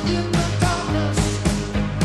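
Live rock band playing: drums hitting a steady beat, about two strong hits a second with lighter ones between, over a held low bass note and higher instrument lines.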